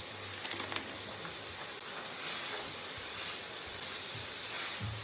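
Pieces of beef fillet sizzling steadily in hot oil in a frying pan, stirred with a spatula.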